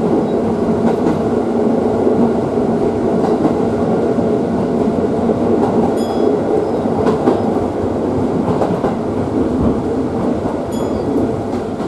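Inside a JR Tsurumi Line commuter train running along the track: a steady rumble of wheels and motors, with two brief sharp ticks, one about halfway and one near the end.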